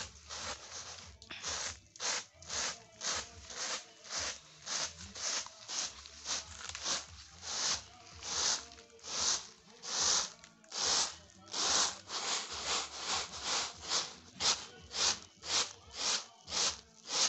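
Dry beans swishing and rattling in a round woven tray as it is shaken and tossed in a steady rhythm, about two strokes a second, quickening a little in the second half. This is hand-winnowing of the beans to clean them before cooking.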